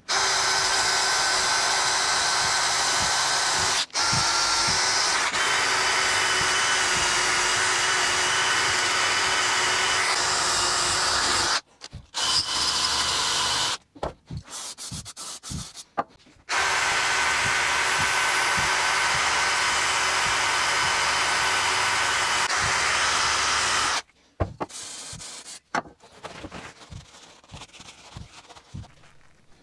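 Cordless power drill spinning a wire brush against a lawnmower engine's cylinder block, cleaning off grime: two long steady runs with a motor whine, broken by a few short bursts in between. Near the end the drill stops and a rag rubs over the metal.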